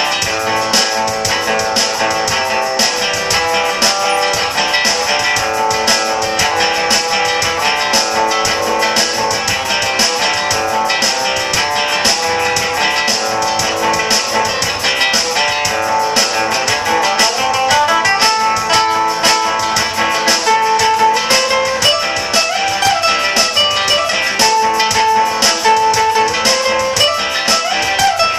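Music played on strummed, guitar-like string instruments, a fast even strumming rhythm under a melody, going on without a break.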